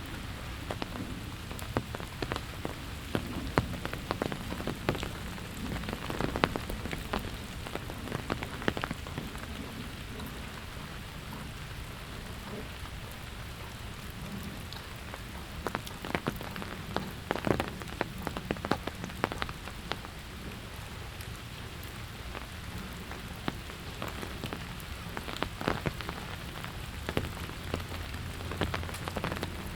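Steady rain falling, with many irregular close raindrop taps throughout.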